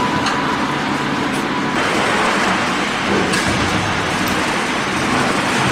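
Loud, steady background noise of a factory hall, an even rushing hum with no single clear source and a few faint clicks.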